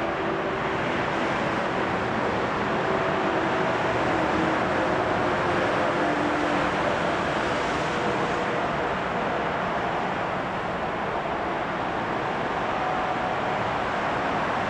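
An Airbus A321's two jet engines at takeoff thrust during the takeoff roll and rotation: a steady roar, with a few faint hums in the first half.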